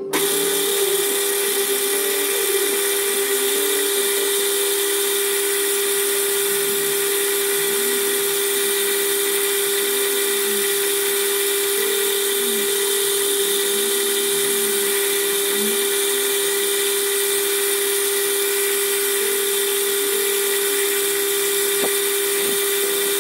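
Metal lathe starting up and then running steadily, its spindle drive giving a high, even whine while the tool turns an aluminium bar.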